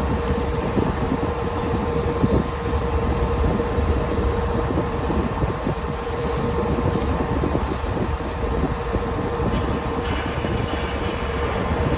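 Steady engine rumble of a roll-on/roll-off car ferry under way, with a constant droning hum over it.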